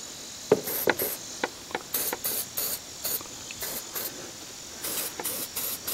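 Aerosol can of battery terminal protector giving a series of short hissing squirts onto battery terminals, in clusters of quick puffs, with a few light clicks between them.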